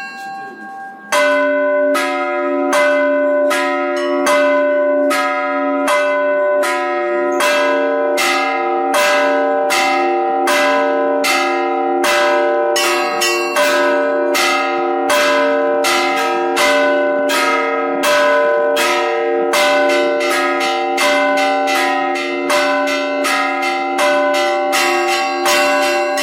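Russian Orthodox cathedral bells ringing a festive peal: several bells of different pitches struck in a steady, fast rhythm of about two strokes a second, their tones overlapping and ringing on. The full peal comes in loudly about a second in, and the strokes grow denser near the end.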